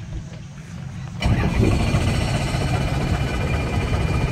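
Helicopter engine noise: a quiet low hum that jumps suddenly much louder about a second in, then runs steadily as a loud low hum with a wash of noise.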